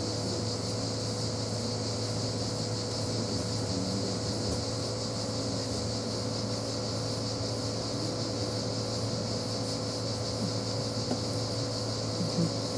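Steady mechanical hum with a constant high hiss over it, unchanging throughout, with a couple of faint clicks near the end.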